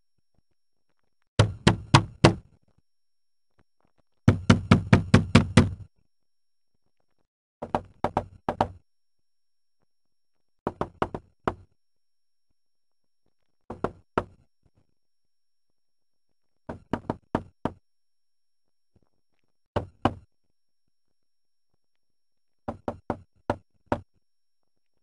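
Synthesised knocking sound effects generated by a conditional WaveGAN: eight short knock sequences about three seconds apart, each of a few sharp knocks, with silence between. Each sequence is meant to convey an emotion: the first two are faster and denser and come from the fear set, followed by happiness examples and then neutral ones.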